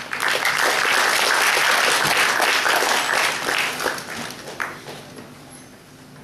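Audience applauding in a hall: the clapping starts at once, stays full for about four seconds, then thins out and dies away.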